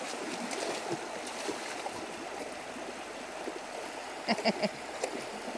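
Small mountain creek running and trickling over stones around a dog wading in it, with faint splashes. About four seconds in there are three quick voiced sounds in a row.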